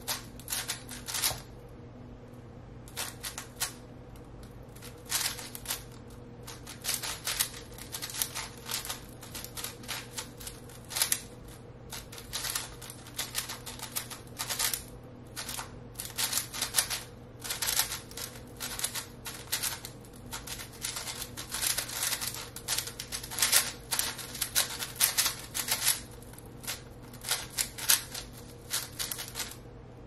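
5x5 Rubik's cube being turned fast by hand: rapid bursts of plastic clacking as the layers rotate, broken by short pauses. A faint steady hum lies underneath.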